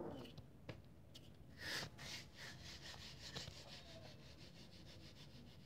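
Faint rubbing and scuffing with a few soft clicks, the strongest scuff about a second and a half in; otherwise close to silence.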